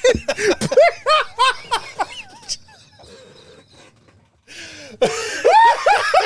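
Men laughing hard in quick repeated bursts. The laughter dies down about halfway through, then breaks out loudly again near the end.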